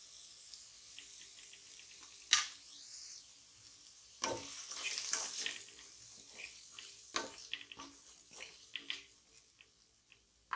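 Wheat rava pouring into a pressure cooker onto sizzling sautéed vegetables and being stirred in with a spatula, the grains hissing over a faint sizzle. A few sharp knocks of the spatula against the metal pot stand out.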